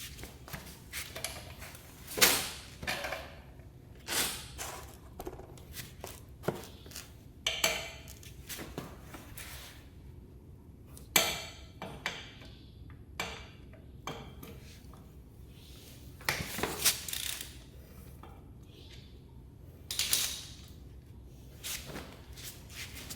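Scattered metallic clinks and knocks, about a dozen separate strikes, some with a short ring: tools and metal parts being picked up and set down during a motorcycle oil change.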